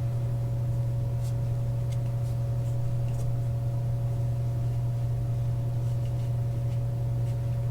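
Coke vending machine humming steadily, a low hum with a fainter higher tone above it.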